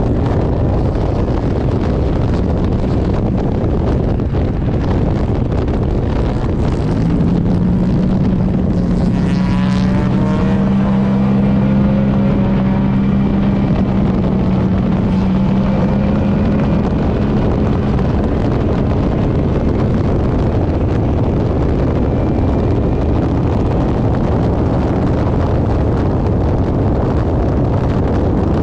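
GM engine of a race car running steadily at speed, with wind buffeting the microphone. From about seven seconds to about eighteen seconds a second steady engine tone joins in over it, with some brief sweeping pitch changes around ten seconds.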